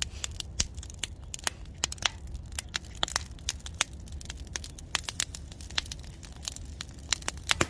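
Firewood fire crackling, with sharp pops and snaps at uneven intervals.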